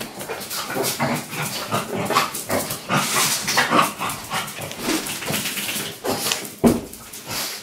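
Plastic shampoo bottle squeezed hard with a rubber balloon stretched over its nozzle, spluttering and squelching irregularly as air and only a little shampoo are forced into the balloon.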